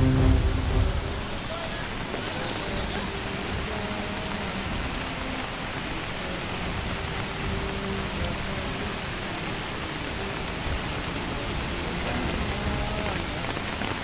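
Heavy rain pouring down steadily, hissing on hard wet surfaces, over the rush of a flash-flood torrent.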